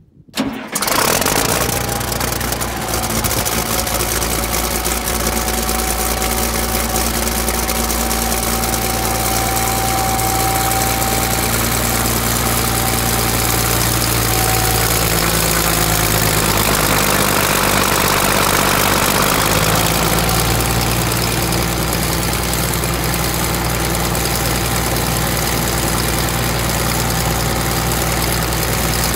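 Haybuster IG10 hay grinder's turbocharged diesel engine idling steadily, its tone shifting briefly about halfway through.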